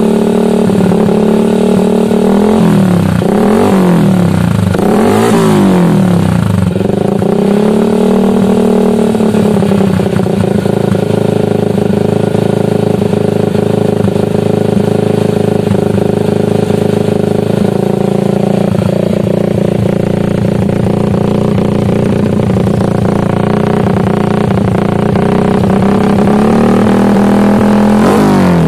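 Yamaha Jupiter MX 135 single-cylinder four-stroke engine running through a 30 cm DOS aftermarket racing muffler: revved up and down about four times in quick blips, then settling to a steady idle, and starting to rev again at the very end.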